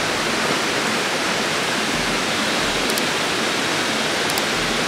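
A steady, even rushing hiss with no rise or fall, with a couple of faint high ticks about three and four and a half seconds in.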